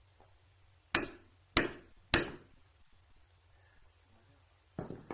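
Three sharp hammer blows about half a second apart, then a softer knock near the end.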